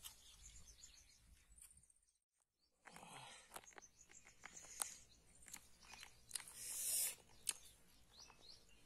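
Clicks and rustles of wild honeycomb being handled and chewed, with a louder rustling burst a little before the end. Birds chirp faintly in the background, and there is a short gap of dead silence about two seconds in.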